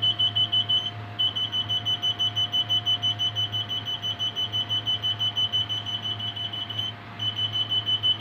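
Rapid high-pitched electronic beeping, about five to six beeps a second, with two short pauses, over a steady low hum.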